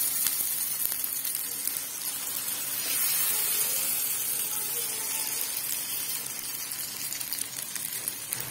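Oats-and-vegetable chilla batter sizzling in hot oil on a non-stick pan as it is poured in and spread out with a ladle: a steady frying hiss.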